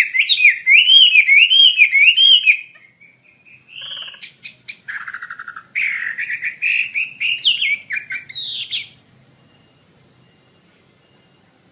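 Chinese hwamei (melodious laughingthrush) singing loudly: a fast string of repeated rising-and-falling phrases, a brief pause, then softer notes and a varied run of phrases that stops about nine seconds in.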